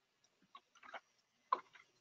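A few faint, scattered clicks from a computer keyboard and mouse.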